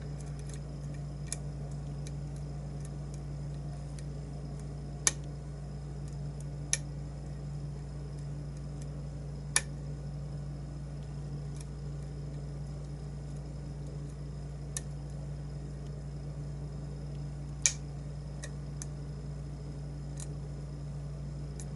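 Sharp metallic clicks every few seconds from a lock pick and tension wrench working the pins of a challenge lock, over a steady low hum.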